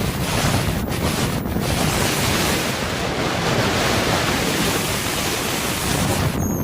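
Loud, steady rushing noise of storm wind on the microphone, dropping away abruptly near the end.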